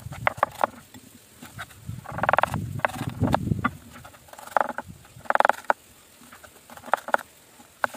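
Chef's knife slicing an onion into half-rings on a wooden cutting board: sharp knocks of the blade on the board and crunchy cuts through the onion, coming irregularly, with two longer crackly runs about two and five and a half seconds in.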